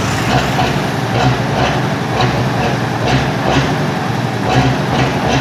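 FNM 180 truck's diesel engine held at a light rev, running with a steady low drone and a regular beat a little over twice a second. The engine is warm and freshly revived after about three years standing.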